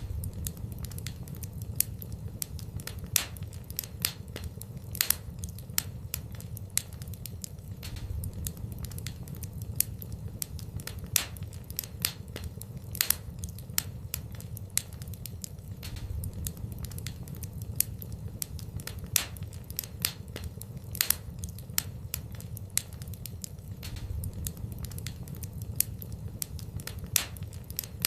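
Fire burning in a fireplace, crackling with irregular sharp pops over a low steady rumble.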